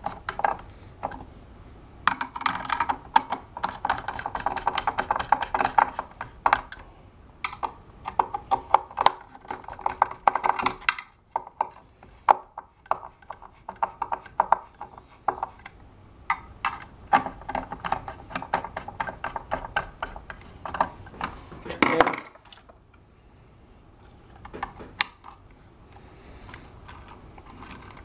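Hand-turned Phillips screwdriver tightening screws into a hoverboard's frame: long runs of rapid clicking and rasping, with knocks of plastic and metal parts being handled. A louder knock comes a little past the middle, and the last few seconds are quieter with only occasional clicks.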